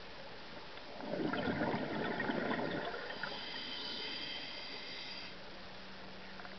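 Scuba diver's exhaled breath bubbling out of the regulator past the camera, loud and rough for about two seconds. It is followed by a fainter steady high whine that stops a little after five seconds in.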